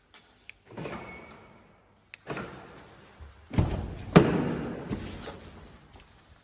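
Clicks and thuds from a BMW E93's door and central locking. The loudest is a heavy thud about three and a half seconds in, followed half a second later by a sharp clunk that dies away.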